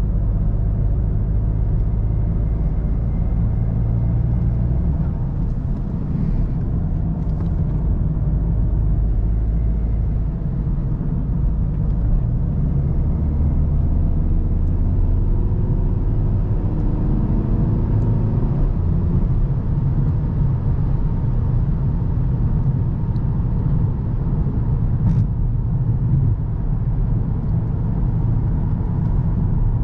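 VW Golf GTD's 2.0 TDI four-cylinder diesel engine running under way with steady tyre and road rumble, the engine note shifting in pitch several times as the car drives on.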